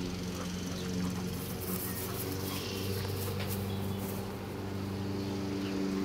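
Steady motor hum with a few faint bird chirps over it.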